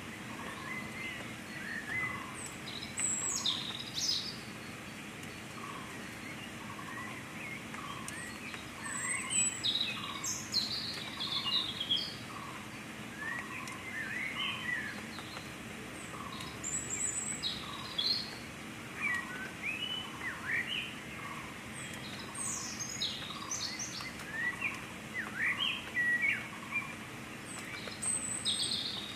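Several birds chirping and singing, with short overlapping calls and a note repeated again and again, over steady background noise with a faint low hum.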